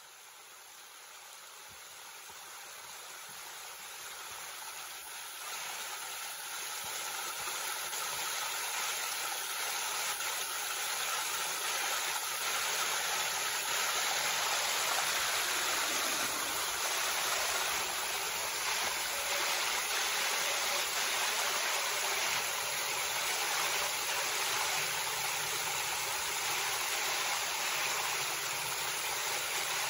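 Shallow creek water rushing and splashing over low rock ledges in small cascades, a steady rush that grows louder over the first dozen seconds and then holds.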